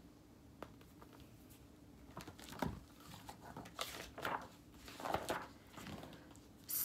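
Faint paper rustling with a few soft taps: a picture book being opened and its pages handled.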